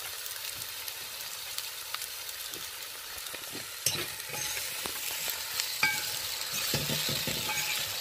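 Chopped okra, onion, tomato and peppers sizzling steadily in hot coconut oil in a pot. From about halfway through, a spoon stirs them and clicks and scrapes against the pot.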